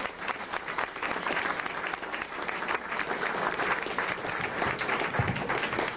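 Audience applauding: many people clapping at once, a dense steady clatter of hand claps.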